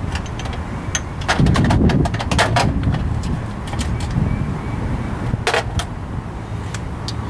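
Scattered sharp metallic clicks and clinks of hand tools and brake caliper bolts being worked, over a steady low hum. The clicks bunch together with a heavier low rumble about a second and a half in, and come once more near the end.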